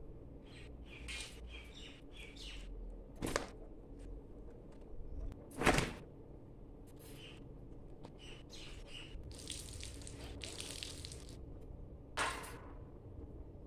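Small birds chirping in short calls, with three sharp knocks; the loudest knock comes a little before halfway.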